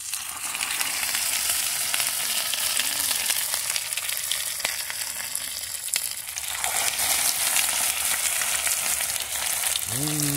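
Breaded cocoroca fish frying in hot oil in a pan, a steady sizzle.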